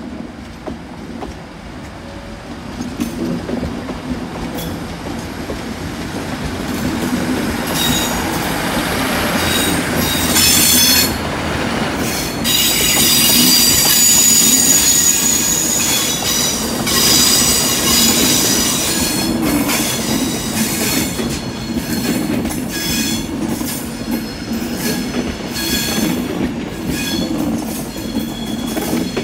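Passenger trains moving slowly through the station: a steady rumble of wheels on rail with clicks over the joints, and shrill wheel squeal on curved track that comes in about eight seconds in and is loudest through the middle.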